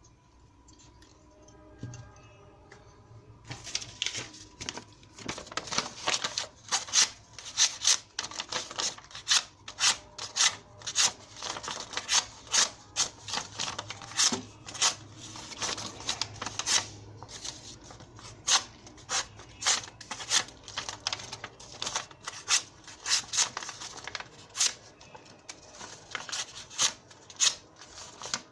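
Chinese-made copy of a Shirogorov Hati 95 flipper folding knife being flipped open and closed over and over, each action a sharp metallic click as the blade snaps out or shut. The clicks start about three seconds in and come about one to two a second.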